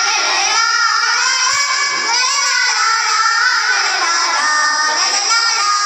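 A group of schoolgirls singing a Malayalam group song (sangha ganam) together, the melody running in long phrases with short breaks between them.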